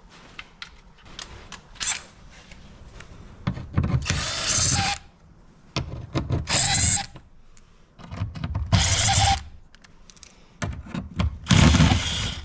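Cordless drill-driver with a Torx bit running screws out of a car door's inner panel, in several separate bursts of about a second each.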